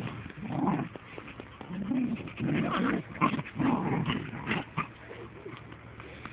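Caucasian Shepherd Dog puppies growling in a series of short, irregular bursts, with a few faint clicks between them.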